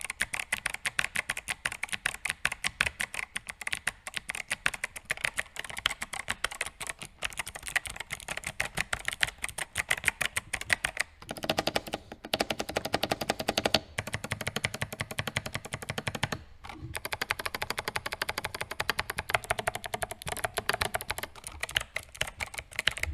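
Fast typing on an 8BitDo Retro Mechanical Keyboard with clicky switches: a dense run of sharp key clicks, broken by a few short pauses, with no spring ping.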